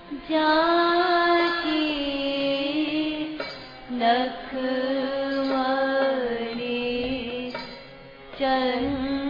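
Devotional Hindi kirtan music: a melody of long held notes that slide from pitch to pitch, dipping briefly twice before picking up again.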